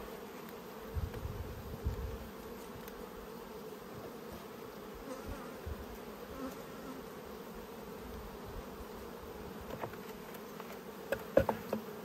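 Honeybees buzzing in a steady hum over an open Langstroth hive box. Near the end come a few sharp wooden knocks and clicks as a frame is pried loose with a hive tool and lifted out.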